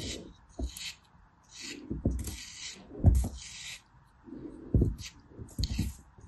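Craft-knife blade cutting through a packed block of kinetic sand: a run of short, gritty scrapes and crunches at uneven intervals, with low thumps among them, the loudest about three seconds in.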